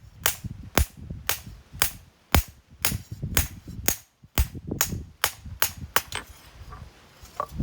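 Hammer blows on hot steel at an anvil as a knife blade is forged: a steady run of sharp strikes about twice a second, stopping about six seconds in.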